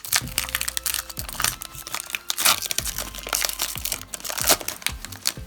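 Foil Pokémon booster pack wrapper crinkling and being torn open by hand, a dense irregular crackle, with faint background music underneath.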